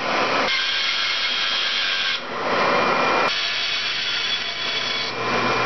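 A 12-inch bandsaw cutting through a thick glued-up 2x4 block: a steady hiss of the blade in the wood over the motor's hum, with a few abrupt shifts in tone.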